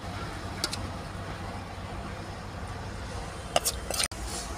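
Steel spoon clinking against steel plates and a kadhai as food is served out: one clink under a second in and a quick cluster near the end, over a steady low hum.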